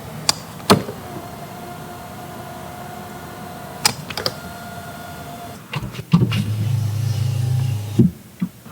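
Toyota Tacoma hybrid pickup's electric accessories: two clicks, then a steady electric motor whine for about four and a half seconds, broken by a couple more clicks. A louder steady low hum takes over for about two seconds near the end, closed by two more clicks.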